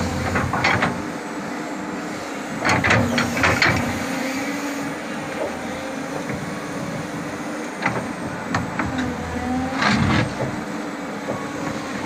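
Backhoe engine running steadily while the bucket digs into wet, packed soil, with loud scraping and clanking strokes about half a second in, around three seconds in, and again near ten seconds.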